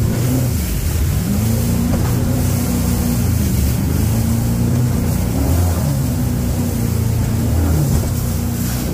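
Jet boat's engine running hard through whitewater rapids, its pitch rising and falling a little, over the steady rush of churning water and wind.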